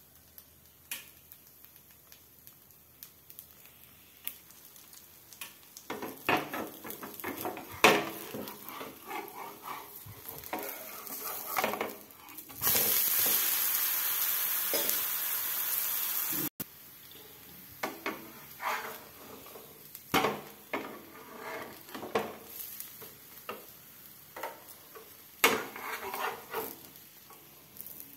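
Metal spatula scraping and knocking against a frying pan as a dosa is loosened and turned. About halfway through there are a few seconds of loud, steady sizzling that cuts off abruptly.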